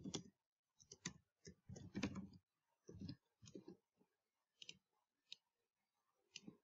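Faint typing on a computer keyboard, a quick run of keystroke clicks, followed by a few separate mouse clicks.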